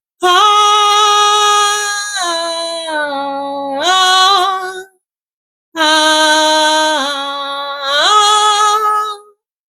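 A woman singing unaccompanied in worship, in two long drawn-out phrases with a short silence between. Each phrase holds a note, steps down in pitch and then rises again.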